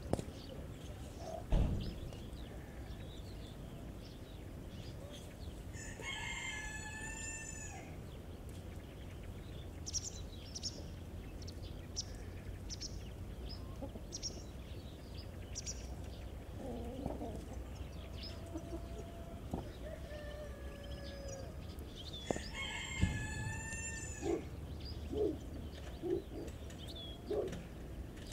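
Roosters crowing twice, one long wavering crow about six seconds in and another about 22 seconds in. Short clucks come in between and after them.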